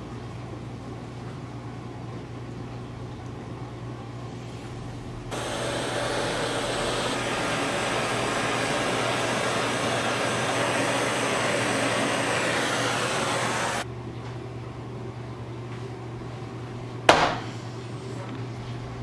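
Kitchen blowtorch hissing steadily for about eight seconds, starting and stopping abruptly, as it caramelizes the sugar topping of crème brûlée. A single sharp knock a few seconds after it stops.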